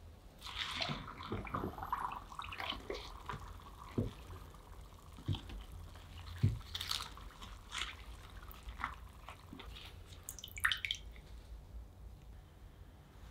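Water sloshing, splashing and dripping in a bucket as gloved hands work a plaster-filled tin-can mould under water, breaking the plaster investment away from a metal casting. Small knocks and splashes come irregularly, with a busier burst near the end.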